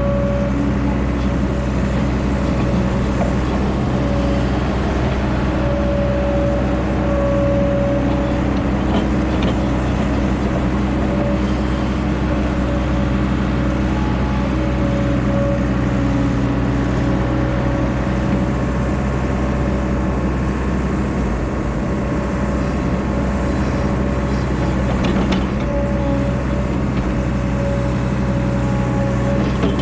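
Diesel engine of heavy earthmoving equipment running steadily under work, with a steady whine over the engine note and a few faint clicks near the end.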